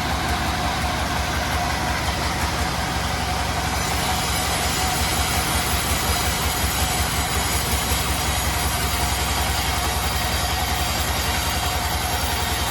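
Bandsaw sawmill running: a steady mechanical drone with a fast, even low throb and a thin high whine that grows stronger about four seconds in.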